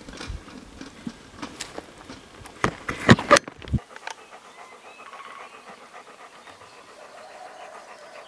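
German Shepherd dog panting close by in quick rasping breaths, loudest in a rapid run of breaths about three seconds in.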